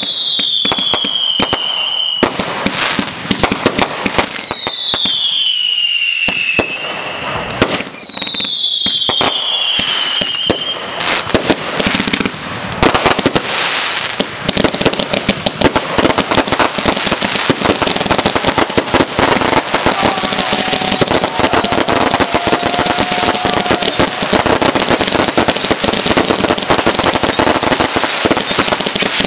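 Fireworks going off in quick succession: sharp bangs with whistles falling in pitch three times in the first ten seconds. From about eleven seconds on comes a dense, continuous crackling of many bursting stars.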